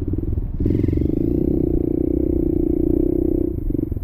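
Trail motorcycle engine running steadily under throttle with a rapid, even firing beat, easing off briefly near the end.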